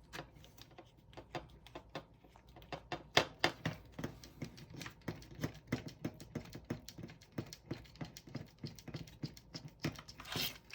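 Irregular small clicks and ticks of an M2x8 screw being driven by hand through a 3D-printed plastic foot, with plastic parts knocking as they are handled.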